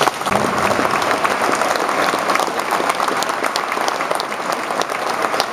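Audience applauding steadily, many people clapping in a reverberant church.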